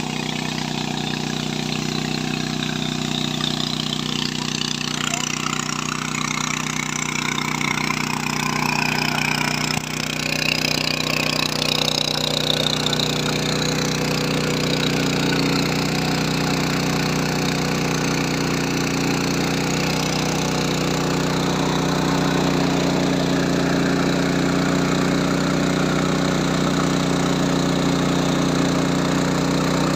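Steady machine hum holding a constant pitch throughout, growing a little louder about ten seconds in.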